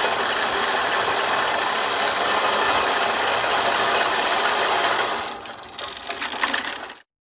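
Hand chain hoist being pulled to move a salvaged engine long block hanging from it: a steady mechanical noise that drops away about five seconds in and cuts off near the end.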